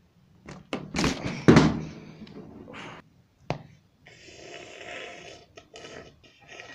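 Plastic water bottle handled, with sharp clicks and loud crackles over the first three seconds, then about a second and a half of steady gulping as water is drunk from it, followed by a few short mouth and bottle sounds.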